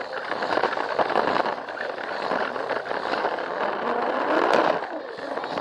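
Plarail toy train running along plastic track, heard close up from on board: a steady whir of its small motor and gears with a dense rattle of plastic wheels clicking over the track joints, swelling briefly about four seconds in.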